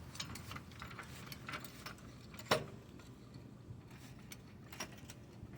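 Faint, scattered clicks and ticks from a jack being worked under a car's front subframe, with one sharper click about two and a half seconds in. The subframe pop being tested for does not come this time.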